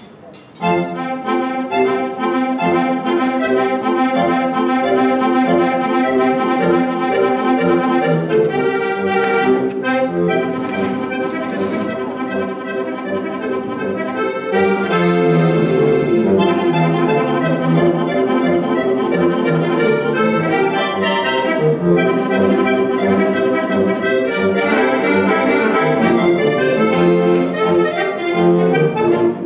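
Button accordion playing a lively traditional folk tune, melody and chords over a steady bass, starting after a brief pause.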